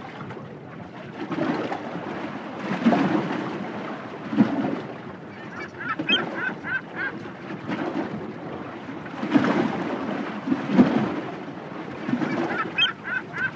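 Bird calls: two quick runs of short, high honking notes, about six seconds in and again near the end, over a continuous rushing noise that swells and fades.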